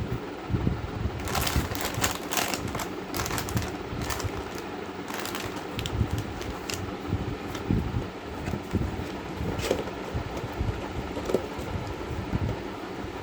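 A steady hum like a fan, with irregular clicks and crackles scattered through it.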